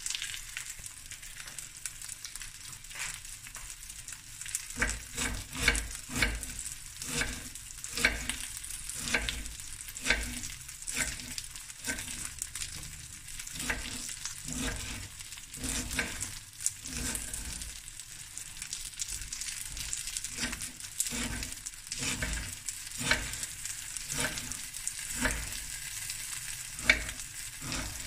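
Chicken drumsticks and thighs sizzling steadily in a stainless steel pan with no oil, browning in their own rendering fat. From about three seconds in, a knife chops cabbage on a wooden board in uneven knocks, one or two a second, louder than the sizzle.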